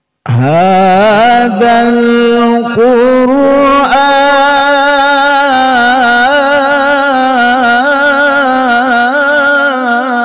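Solo male voice reciting the Qur'an in the melodic tilawah style through a microphone: it enters with a rising swoop about a quarter second in, then holds one long ornamented phrase, wavering and stepping in pitch.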